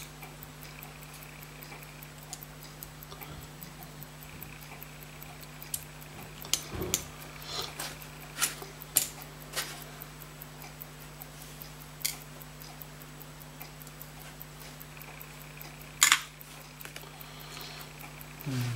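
Scattered sharp metallic clicks and taps from handling a pocket watch movement during repair, most of them in the middle stretch, with the loudest a few seconds before the end. Under them run a steady low hum and a faint, fast, even ticking.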